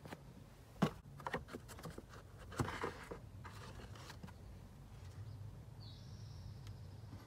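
Plastic clicks and knocks, then a scraping slide about three seconds in, as the old pleated cabin air filter is pulled out of its plastic housing behind the glovebox.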